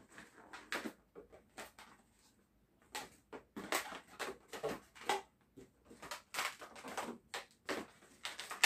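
Latex twisting (modelling) balloons rubbing and squeaking against each other and the hands as they are twisted and pressed into shape, in a string of short, irregular squeaks and rustles.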